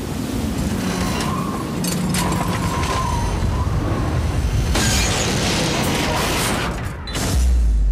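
Advertisement soundtrack of dense, rushing sound-design noise that ends in a sudden deep boom about seven seconds in.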